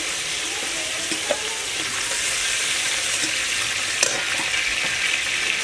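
Shrimp and mustard oil sizzling steadily in an aluminium kadai, with a metal spatula scraping the pan and knocking against it a couple of times as the fried shrimp are lifted out.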